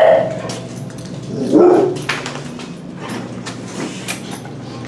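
Shelter dogs barking from their kennels: one sharp bark at the start and a lower bark about a second and a half later. Short clicks and rattles come in between over a steady hum.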